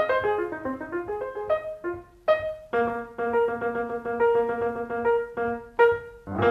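Background piano music: a run of single notes stepping downward, then from a little under halfway in a chord struck over and over in quick succession.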